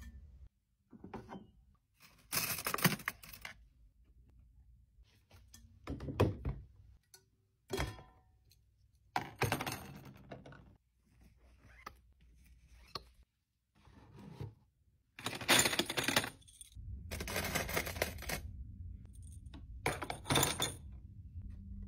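Drinkware and straws being handled and set down in a plastic basket: short clatters, clinks and thunks, one every couple of seconds. The longest and loudest handling comes in the last few seconds.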